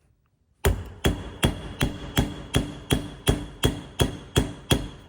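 A hammer striking a metal turbocharger part in a steady series of about a dozen blows, roughly three a second. Each blow leaves a short metallic ring.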